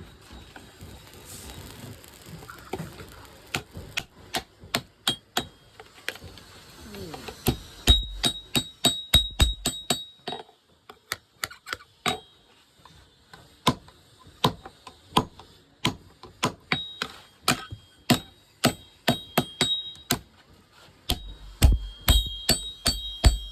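Hammer striking steel on an anvil in quick runs of blows, roughly two to three a second, many of them leaving a high ring. A couple of short pauses break the hammering.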